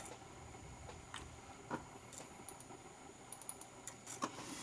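A few faint, sparse clicks of Mac keyboard keys over a quiet room hum, as the keyboard is used at the boot disk chooser.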